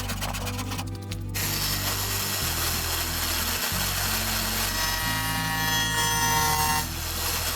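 A power tool working wood, a steady rushing noise that starts about a second in, over background music with a bass line.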